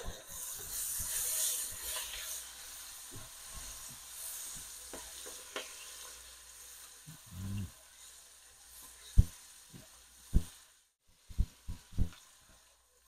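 Onion, tomato and whole spices sizzling in hot oil in a pot while being stirred. The sizzle is loudest in the first couple of seconds and then dies down, and several sharp knocks of the stirring utensil against the pot come near the end.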